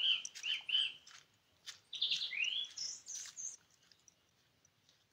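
Birdsong: a quick run of short arched chirps mixed with sharp clicks, then a rising whistle and a few higher notes, dying away about three and a half seconds in.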